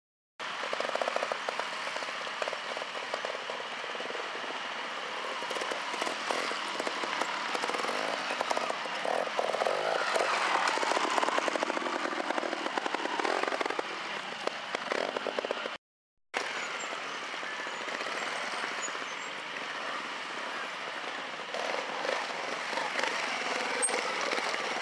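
Trials motorcycle engine running and revving in short bursts, its pitch rising and falling around the middle. The sound drops out briefly just after the start and again about two-thirds of the way in.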